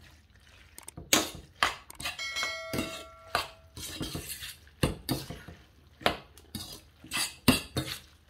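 A metal fork stirs and tosses spaghetti with lardons in a stainless steel pan, clinking and scraping irregularly against the pan. About two seconds in, one knock sets the pan ringing for over a second.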